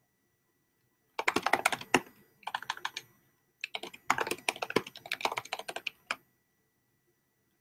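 Fast typing on a computer keyboard: three runs of rapid key clicks with short pauses between them, stopping about six seconds in.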